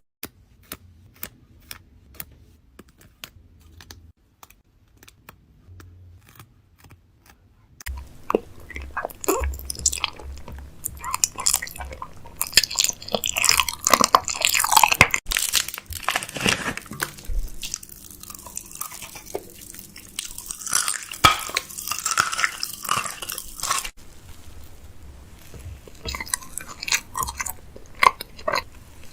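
Close-miked chewing and crunching of food in a person's mouth, with only a few faint clicks at first; about eight seconds in it turns into steady, dense crunching.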